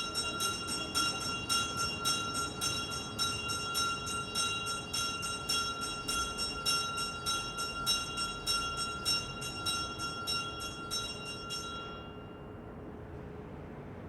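A single church bell rung rapidly, about three strokes a second, each stroke with the same bright ringing tones. It stops about twelve seconds in and rings out, leaving a low steady background hiss.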